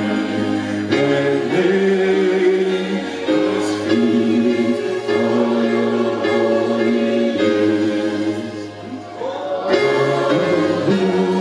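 Choir singing a gospel hymn, held notes changing about once a second, with a brief drop in level about nine seconds in.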